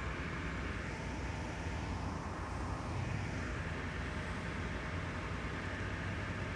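Steady low engine rumble of traffic and machinery. A vehicle passes about two to three seconds in, its pitch falling as it goes by.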